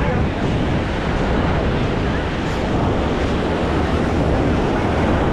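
Ocean surf washing onto the beach, heard as a steady rush under heavy wind buffeting the microphone.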